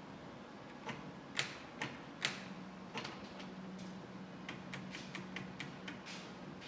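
Scattered, irregular light clicks and ticks of wire connectors being handled and pushed together at a 1973 Triumph TR6's steering-column switches, over a faint steady hum.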